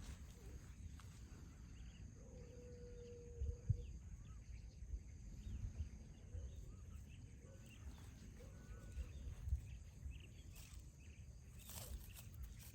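Faint outdoor background: a low steady rumble with scattered faint chirps, a faint held call-like tone lasting about a second a couple of seconds in, and a few soft thumps.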